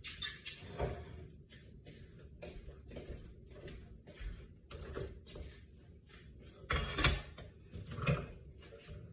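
Kitchen handling noises: irregular knocks and clatters as a glass container and a bowl are set down on the countertop, the loudest about seven and eight seconds in.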